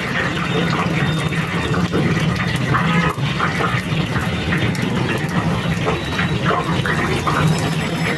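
Momos deep-frying in hot oil in a wire fryer basket: a steady sizzle and bubble with scattered crackles, over a constant low hum.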